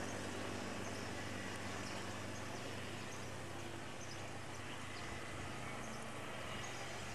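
Steady outdoor background noise with a low, even hum underneath and a few faint, short high chirps.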